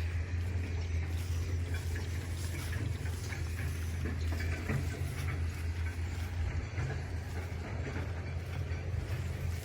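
Excavator's diesel engine running steadily, with scattered light knocks and clinks in the middle of the stretch.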